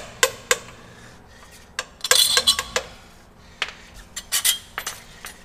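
Irregular sharp metallic taps and clinks of hand tools on steel brake parts, with a quick cluster of ringing strikes about two seconds in: a new S-cam seal being tapped into place without a seal driver.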